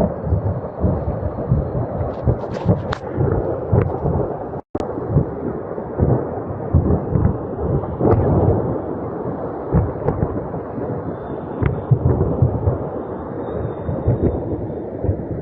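Continuous rolling rumble of distant explosions from a burning ammunition depot, with many short cracks and pops, picked up on a phone microphone. The audio drops out briefly about five seconds in.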